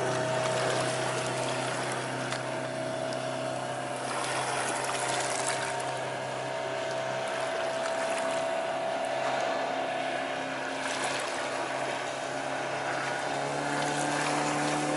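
A Mercruiser 140 hp four-cylinder sterndrive boat engine running under way at a steady drone, with the water's hiss beneath it. Its pitch sags slightly, then steps up a little more than halfway through as the engine revs higher.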